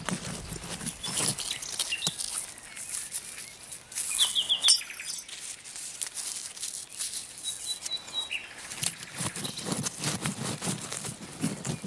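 Gloved hands scraping and scooping loose, dry soil out of a hole, with many small crackles and clicks of dirt and grit. Songbirds sing in the background, with short whistled notes and a fast trill about halfway through.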